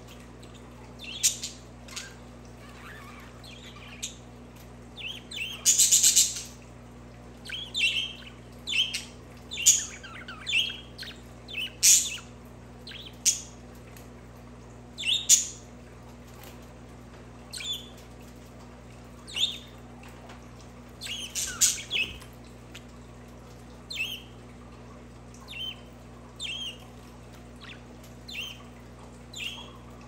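Budgerigars chirping: short, scattered chirps and calls about every second. A louder, harsher chatter comes about six seconds in, and another burst of calls a little past twenty seconds.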